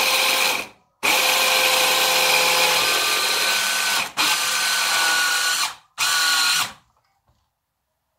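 Electric hand blender with its chopper attachment grinding walnuts in pulses: the motor whines in four bursts of half a second to three seconds, then stops about a second and a half before the end.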